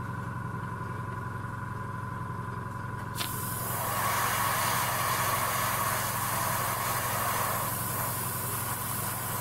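Airbrush compressor running with a steady hum. About three seconds in, the airbrush's hiss of air and gloss varnish spray starts up and carries on.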